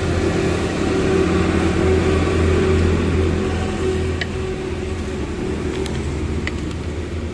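Steady low engine and road drone of a moving vehicle. It swells a little a second or so in, eases back, and a few faint clicks come near the end.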